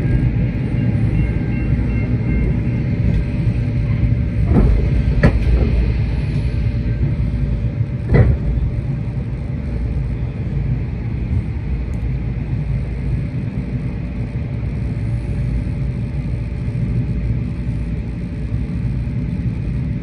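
Heritage railway carriage rolling along the track, heard from inside: a steady low rumble with a few sharp clicks about four to eight seconds in.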